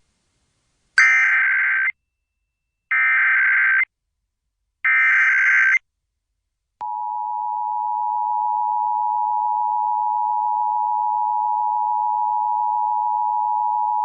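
Emergency Alert System broadcast tones opening a Required Monthly Test. First come three one-second bursts of SAME header data, a screeching digital warble, each a second apart. Then, from about seven seconds in, the steady two-tone EAS attention signal (853 and 960 Hz sounded together) holds.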